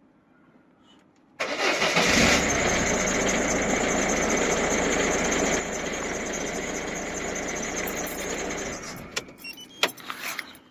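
1.6 HDi four-cylinder turbodiesel engine started with the key: it fires about a second and a half in and runs steadily, settling to a slightly quieter idle a few seconds later, now starting after its starter-motor fuse problem. A few sharp clicks near the end.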